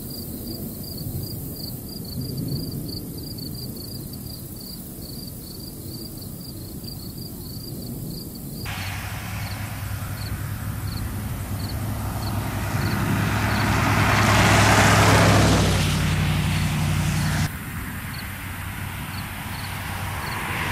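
Outdoor field sound: low wind noise with insects chirping in a steady high pulse, about three times a second. In the middle a road vehicle approaches and passes, its engine hum and tyre noise swelling to a peak and falling away, then the wind and insect chirps return after a sudden cut.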